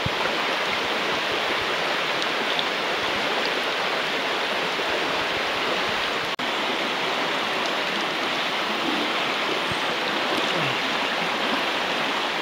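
Shallow mountain stream rushing over stones: a steady, even rush of water that briefly cuts out about six seconds in.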